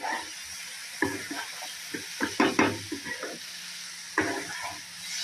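Spatula scraping and tossing poha in a non-stick kadai over a steady frying sizzle, with several scrapes, the loudest a little past two seconds in.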